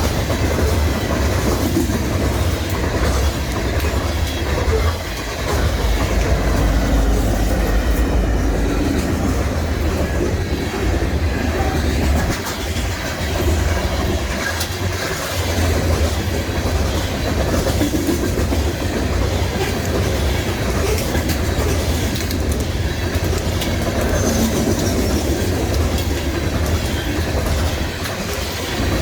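BNSF freight train rolling past, a steady loud rumble of the cars with the wheels clacking over the rails.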